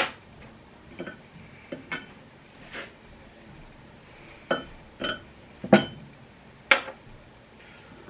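Light metallic clinks and taps, about nine spread irregularly: small steel lower valve spring seats being worked out of an LS cylinder head and set down, the loudest near the start and in the second half.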